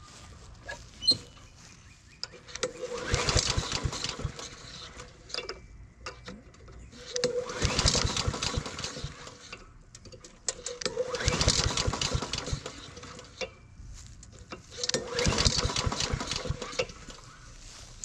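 Honda lawn mower engine pull-started four times; each pull cranks it over for about two seconds with a rapid chugging, and it does not catch. This is a hard start that the owner puts down to the automatic choke staying open when cold.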